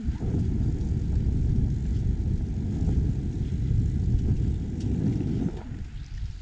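Wind buffeting a moving action camera's microphone: a loud, ragged low rumble that eases a little about five and a half seconds in.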